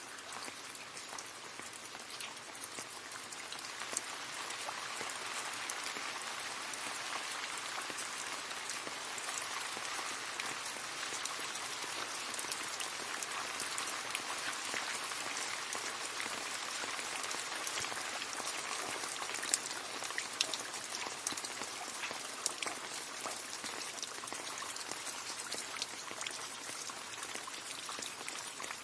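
Steady rain falling and splashing into a puddle, a constant patter of many small drops with sharper individual plinks scattered through it.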